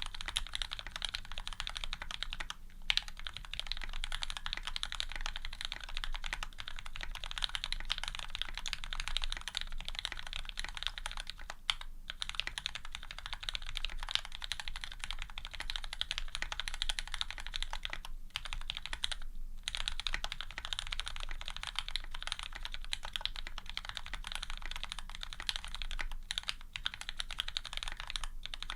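Fast continuous typing on a custom mechanical keyboard with lubed linear Cherry Retooled Black switches, GMK keycaps and an aluminium plate: a dense stream of key clacks with a few brief pauses.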